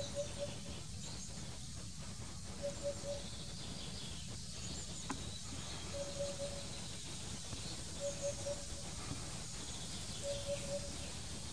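Eurasian hoopoe singing: phrases of three quick low notes, 'hoop-hoop-hoop', repeated about every two seconds, five phrases in all.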